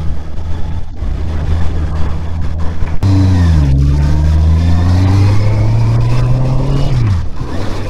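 Honda CBR650R's 649cc liquid-cooled inline-four engine running while under way. About three seconds in it gets suddenly louder and its pitch climbs steadily as the bike accelerates, then drops sharply near the end.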